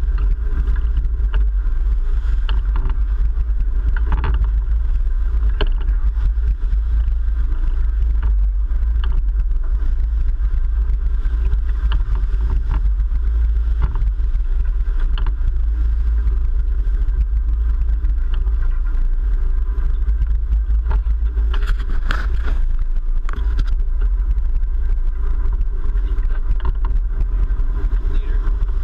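Sportfishing boat's inboard engines running, a steady loud low rumble, with water churning at the stern and a few sharp knocks.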